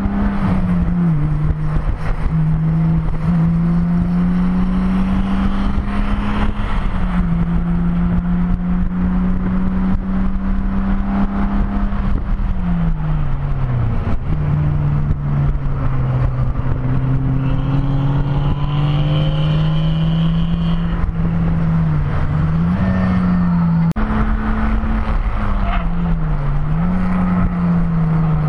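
BMW E30 3 Series race car's engine, heard from inside the stripped cabin while lapping at speed. Its note holds steady, falls sharply about twelve seconds in, then pulls again, with two brief dips near the end.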